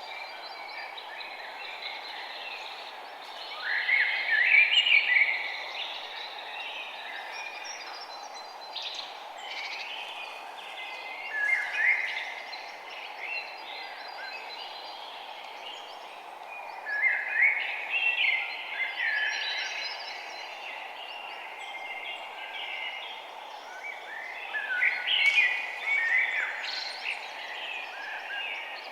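Songbirds chirping and warbling in short flurries, one about every six or seven seconds, over a steady background hiss.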